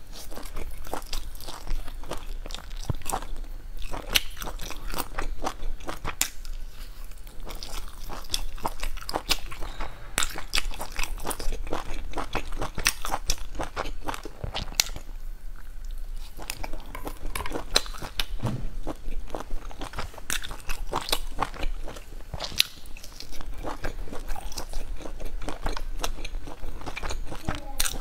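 Close-miked biting and chewing of fried food taken off wooden skewers, with many irregular crisp crunches and wet mouth sounds.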